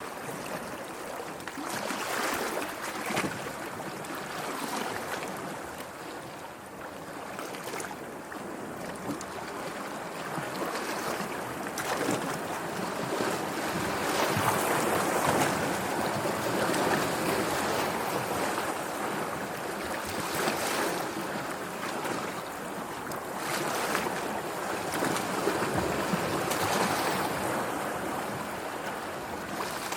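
Sea waves washing and breaking, a continuous rushing that swells and eases every few seconds.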